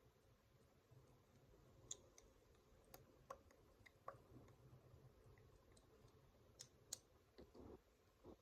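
Faint, scattered clicks of a plastic fidget toy being twisted and turned by hand, coming at irregular intervals.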